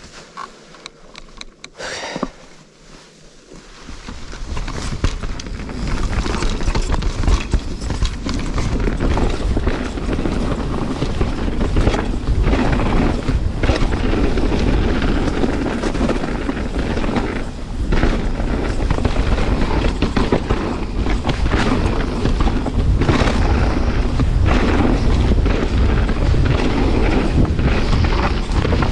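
Canyon Spectral 29 CFR mountain bike riding down a rough trail: from about four seconds in, a loud, steady rumble of tyres and wind on the microphone, with many sharp knocks and rattles from the bike over rough ground.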